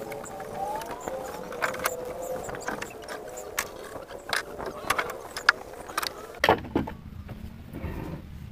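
Irregular sharp knocks and taps of wooden boat timbers being handled and struck, over a faint wavering hum. The knocks die away about six and a half seconds in, leaving a low steady hum.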